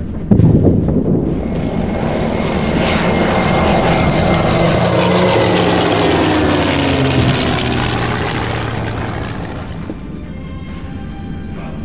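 A loud bang just after the start, then a propeller aircraft flying low overhead: its engine drone swells, drops in pitch as it passes, and fades away near the end.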